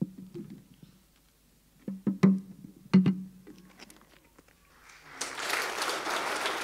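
A few scattered plucked notes on a stringed instrument, each ringing briefly. About five seconds in, the congregation starts applauding, and the clapping grows steady.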